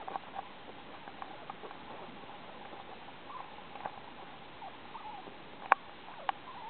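Very young puppy making faint, high little squeaks and whimpers as it squirms, with two sharp clicks near the end.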